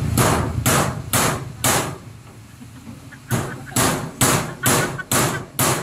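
A series of loud, evenly spaced knocking blows, about two a second. Four come first, then a pause of about a second and a half, then a run of six.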